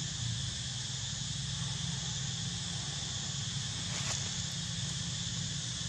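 Steady high-pitched drone of a forest insect chorus, over a constant low rumble, with one faint click about four seconds in.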